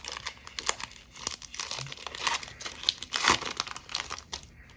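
A Pokémon TCG booster pack's foil wrapper being torn open and crinkled. It makes a dense run of irregular crackles that dies away near the end.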